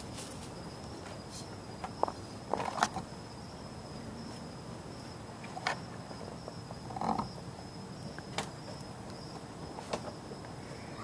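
Crickets chirping in a steady high trill, with a few soft knocks and rustles scattered through it.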